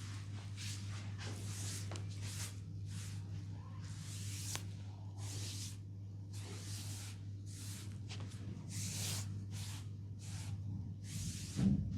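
Short hissing strokes repeated about one and a half times a second, over a low steady hum.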